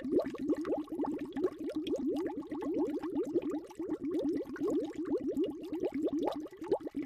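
Underwater bubbling sound effect: a steady stream of small bubbles, each a quick rising blip, several a second.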